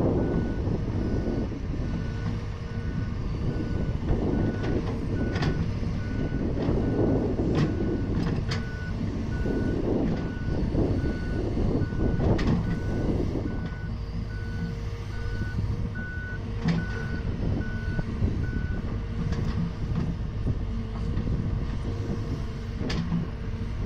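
Hydraulic excavator at work: its warning beeper pulses steadily about twice a second over the running diesel engine, stopping about nineteen seconds in, with a few sharp metallic clanks.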